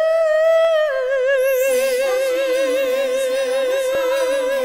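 Music: a high solo voice holds one long sung note, which settles a little lower and begins to waver with vibrato about a second in. Lower accompaniment enters beneath it shortly after.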